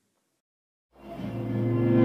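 Silence for about a second, then background music fades in with sustained chords, growing louder.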